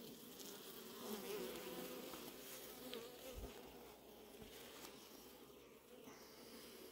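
Honeybees from an opened hive buzzing as a frame covered in bees is lifted out; a faint, continuous hum.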